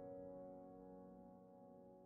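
Background music: the tail of a sustained piano chord, slowly fading away.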